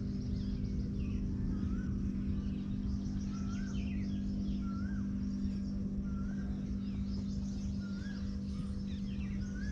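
Birds chirping in a busy chorus over a steady low hum and rumble. One bird repeats a short rising-then-falling whistle about once a second.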